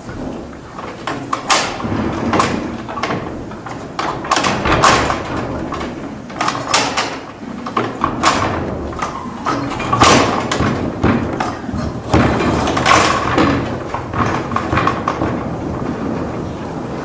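Metal-framed sliding stall door rattling and clanking in irregular bursts as a horse works at its latch and pushes on it.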